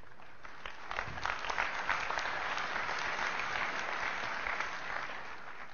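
Large audience applauding, building about a second in and dying away near the end.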